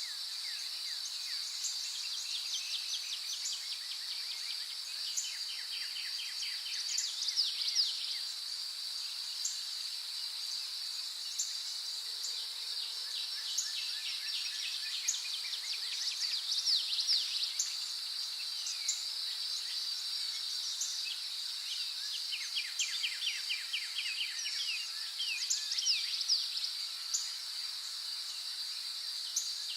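Outdoor meadow ambience: a steady, high-pitched insect drone, with a songbird singing short trilled phrases every few seconds.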